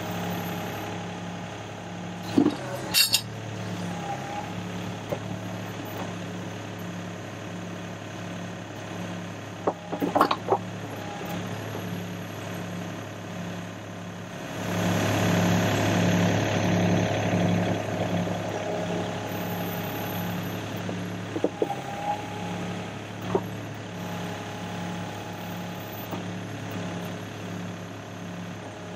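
Sany SY35U mini excavator's diesel engine running steadily while its hydraulics tilt the Mongo tilt bucket, working harder for a few seconds about halfway through. Several short metallic clinks or knocks come from the bucket and its coupler, a pair near the start and more around a third of the way and two-thirds of the way in.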